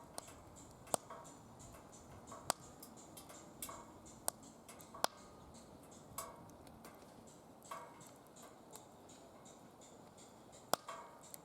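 Firewood burning in a fire pit, crackling with sharp, irregular pops over a faint steady hiss; the loudest pops come about a second in and near the end.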